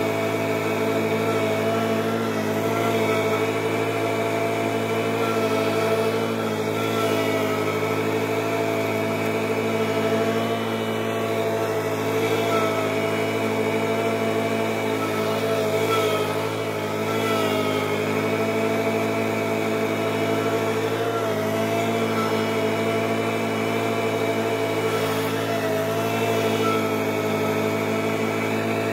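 An engine running steadily at a constant speed, with no revving or change in pitch.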